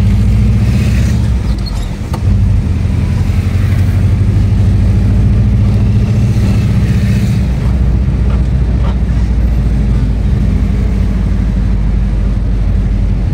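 Volkswagen Kombi van's engine running steadily as it drives through city traffic, heard from inside the cab. The level dips briefly about two seconds in, then picks up again.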